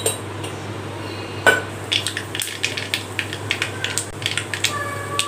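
Mustard seeds popping and crackling in hot oil in an aluminium kadai: a rapid, irregular run of sharp pops from about two seconds in. A single metallic clink with a short ring comes about a second and a half in.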